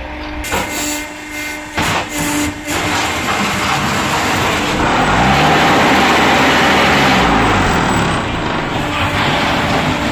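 Heavy machinery running loudly, with an engine whose pitch rises and falls and a steady low hum, and a few sharp knocks in the first three seconds.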